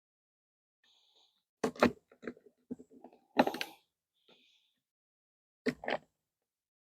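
A few sharp clicks and knocks of hand work on a small ATV's battery: hard plastic and metal parts being handled, ending in a quick double click.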